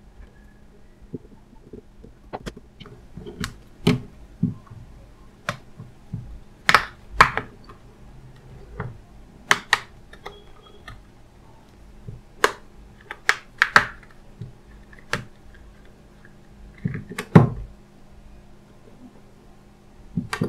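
Mobile phones and their plastic parts handled on a workbench: irregular sharp clicks and light knocks, a few louder ones, over a faint steady hum.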